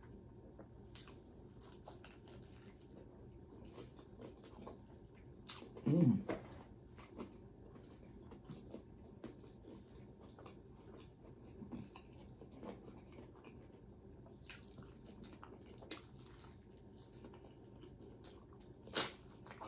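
Close-miked biting and chewing of fried chicken, with scattered small crunches and mouth clicks. A louder, briefly voiced sound comes about six seconds in, and a sharp click near the end.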